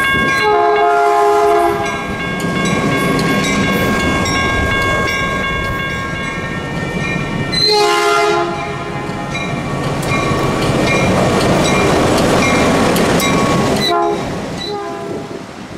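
Diesel switcher locomotive JPBX 503 running light, sounding its multi-note horn three times, each blast about a second long: just after the start, in the middle and near the end. Engine and wheel noise run underneath, with a bell ringing.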